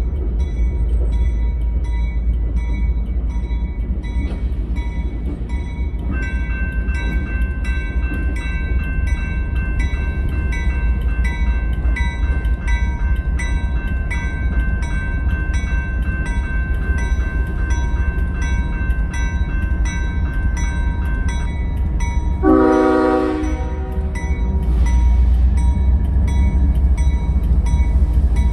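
CSX GE ES40DC diesel locomotives rumbling at low speed as they approach a grade crossing, with the crossing bell ringing about twice a second. A short train horn blast about 22 seconds in is the loudest sound.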